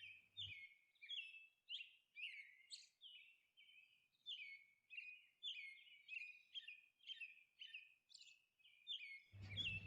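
Faint bird chirping: a steady string of short, quick, downward-sliding chirps, about two a second.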